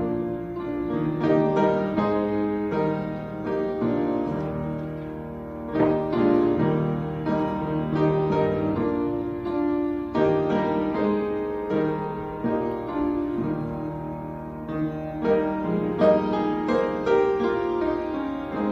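Solo piano playing, with sustained chords under a melody line.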